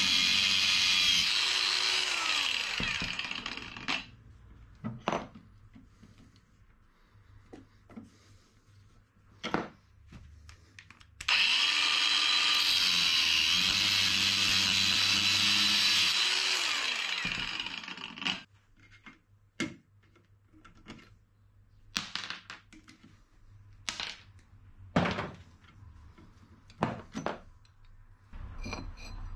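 Angle grinder cutting into the steel rod of an old car shock absorber, a loud steady high-pitched whine in two runs of a few seconds each, each winding down after the trigger is released. Between and after the runs come short sharp metal clinks and knocks.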